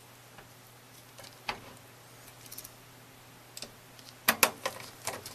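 Scattered light clicks and taps of a screw and screwdriver against the computer case as a power-supply mounting screw is set into its hole, with a quick cluster of sharper clicks about four seconds in.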